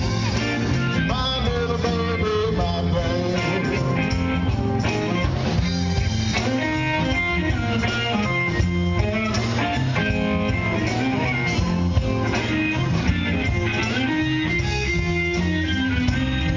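Live band playing: electric guitar over bass and drums.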